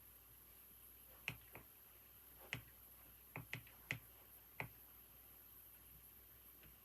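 A few scattered computer keyboard keystrokes, about seven sharp clicks at an uneven, slow pace over a few seconds, with a faint steady hiss behind.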